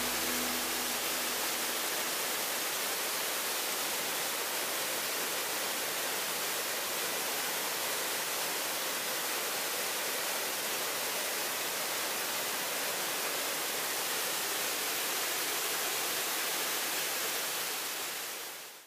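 Steady rushing of a waterfall in heavy flow, pouring over rock ledges. The last notes of background music die away in the first couple of seconds, and the water sound fades out at the end.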